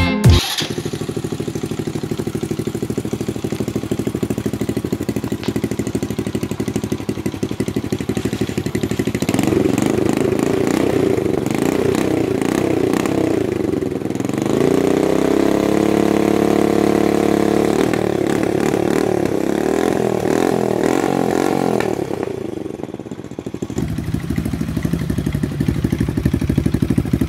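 Kymco motorcycle engine running through a homemade exhaust muffler made from an empty refrigerant can. It runs steadily, is revved about halfway through so the pitch rises, holds for a few seconds and falls back, and eases off briefly near the end before picking up again.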